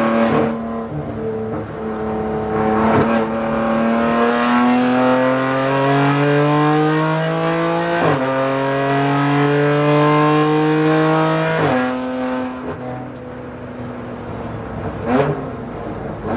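BMW M4 GT4's twin-turbo straight-six heard from inside the cockpit at full throttle. It revs up in third, snaps through a quick upshift to fourth about eight seconds in, and climbs again. Around twelve seconds in the driver lifts off for braking and the pitch falls, with two short sharp cracks near the end as it drops back a gear.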